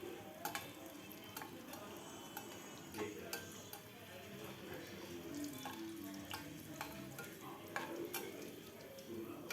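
Cashews frying in hot oil in a kadai, a quiet sizzle, with a spatula stirring and tapping against the pan now and then.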